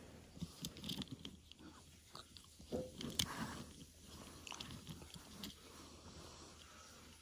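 Soft clicks, taps and crackly rustling from a small toy truck being handled, turned over and set down on a fabric couch arm.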